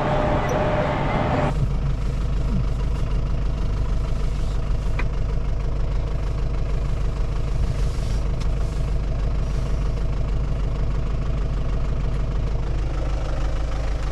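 A vehicle's engine idling steadily, heard from inside the cab. It follows a brief stretch of loud rushing noise that cuts off about a second and a half in.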